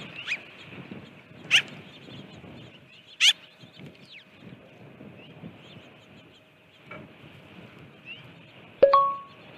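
Birds calling outdoors, with two loud, short calls a couple of seconds apart over fainter chatter. Near the end comes a sudden metallic ding that rings briefly.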